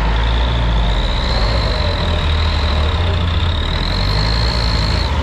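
Heavy truck engine running steadily, a deep rumble with a thin high whine on top that cuts off just before the end, as the sugarcane-laden truck sits stuck with its rear wheels sunk in loose cane trash.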